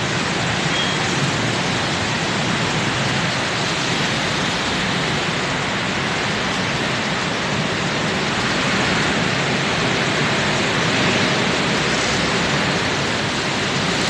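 Heavy rain pouring in a steady hiss, mixed with the running of road traffic: motorcycles and cars passing slowly on a wet road.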